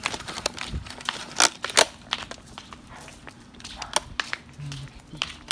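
Footsteps and rustling, crunching handling noise on a handheld phone microphone while walking, a string of irregular clicks and snaps with two loud cracks close together about a second and a half in.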